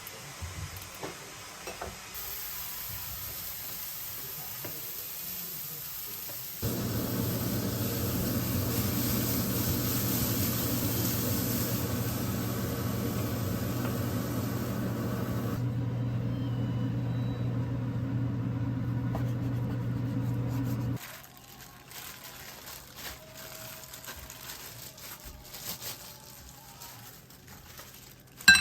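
Stovetop cooking: a steady frying sizzle with a low hum under it, loudest through the middle, then quieter small kitchen noises and one sharp clink at the very end.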